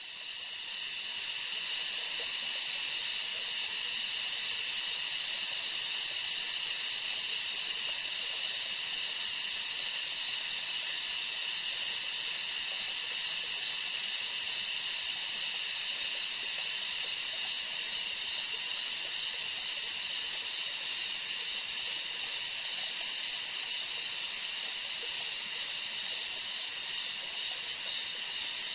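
Steady, high-pitched chorus of rainforest insects, an even hiss that does not change.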